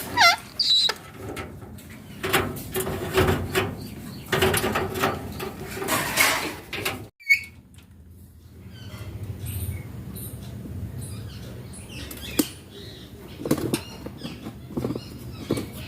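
Ring-necked parakeet moving about, with fluttering wings, rustles and many short clicks. There is a brief descending call right at the start and a short chirp about halfway.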